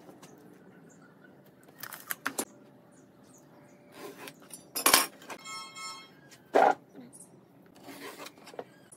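Steel measuring tools (a tape measure, a try square and a steel ruler) handled and set down on a pine board: scattered clicks and clacks. The loudest knocks come about five and six and a half seconds in, with a brief metallic ringing after the first.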